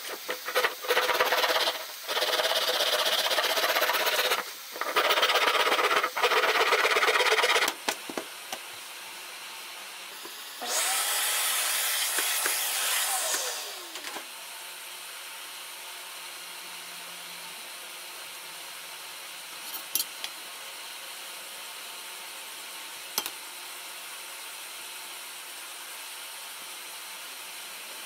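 A pine block is sanded by hand in long rubbing strokes for the first several seconds. About eleven seconds in, a small power tool runs for roughly three seconds, and its whine falls in pitch as it winds down. After that there is only faint hiss and a couple of light taps.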